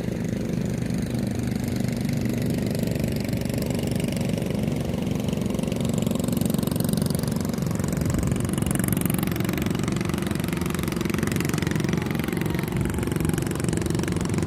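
Outboard engine of a motorized bangka running steadily as the boat passes by on the river.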